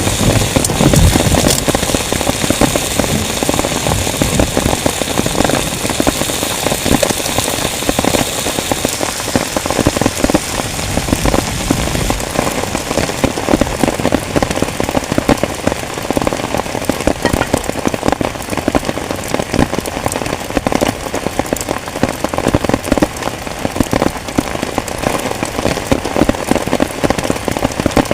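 Heavy rain drumming on a tent, a dense patter of drops striking the fabric over a steady hiss. The hiss is a little stronger for the first nine seconds or so.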